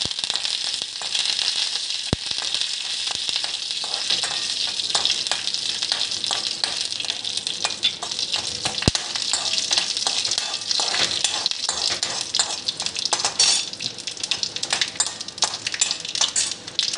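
Hot oil sizzling and crackling steadily in a small kadhai as mustard seeds, dried red chillies and curry leaves fry for a tempering. A spoon stirs them, with a couple of sharp clicks against the pan.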